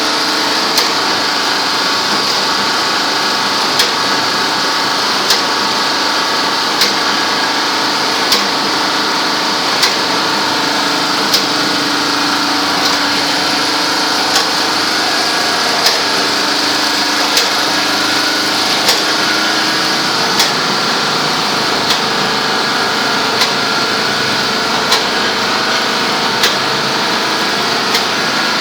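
Automatic snack packaging machine running steadily, with a sharp click repeating evenly about every second and a half.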